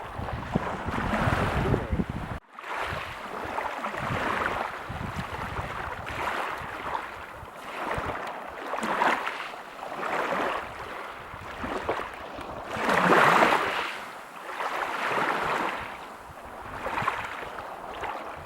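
Waves breaking and washing on a beach, a hiss of surf that swells and ebbs every second or two. The loudest wave comes about two-thirds of the way through. There is a brief sudden dropout about two and a half seconds in.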